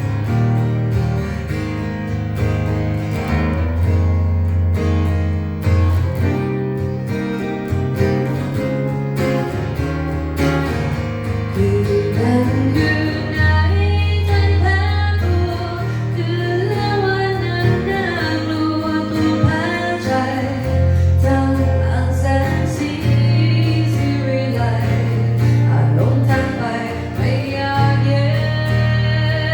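Live band music: guitars over a steady bass line, with a wavering melody line coming in about twelve seconds in.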